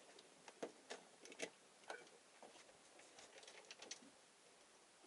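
Faint, scattered light clicks and taps of handling noise, a dozen or so irregular ticks over a low hiss.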